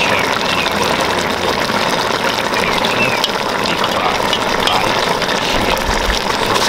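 A pot of Jamaican steam fish and vegetables in sauce simmering on a gas burner: a steady rushing noise with bubbling.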